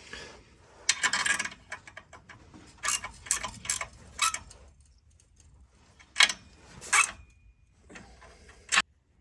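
Ratchet wrench clicking in several short bursts with pauses between them as the nuts on the airbag bracket bolts are tightened.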